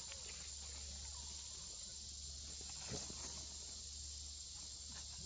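Steady, high-pitched chorus of insects in the forest, continuous and unchanging, over a low steady hum, with a single soft knock about three seconds in.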